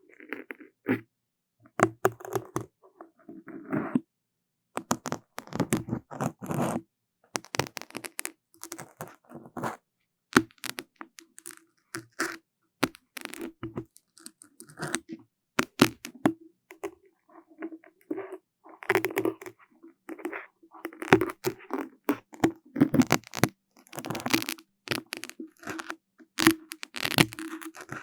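Close-miked ASMR trigger sounds: irregular crackling, clicking and scratching right at the microphone, in quick clusters with short pauses.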